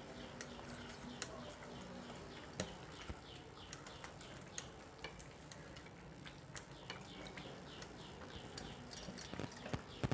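A thick rice-and-lentil mixture simmering in a pot, bubbles popping at its surface in soft, irregular pops and clicks, a few each second and busier near the end.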